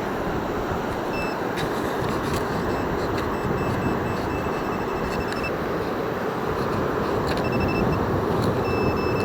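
Metal detector beeping on a buried target: short repeated beeps of one steady pitch, in bursts about a second in, for several seconds in the middle, and again near the end, over a steady rush of wind and surf.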